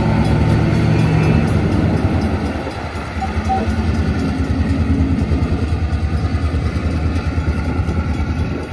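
EMD GP38-2 diesel locomotive's 16-cylinder two-stroke engine working under load, a steady low pulsing throb. It eases slightly about two and a half seconds in, then fades a little near the end.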